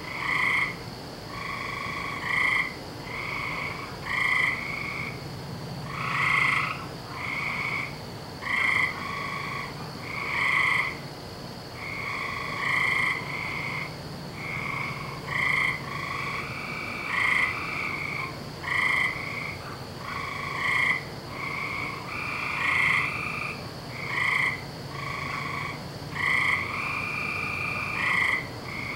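A chorus of several frogs croaking, short calls repeating about once a second and overlapping one another, with a few longer drawn-out calls in the second half. A steady faint high-pitched hum runs underneath.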